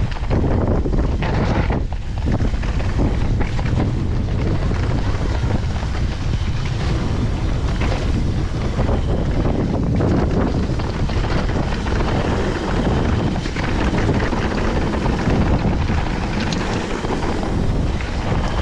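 Wind rushing over the microphone of a mountain bike's camera on a descent, over a steady rumble of tyres on the trail, with scattered knocks from the bike.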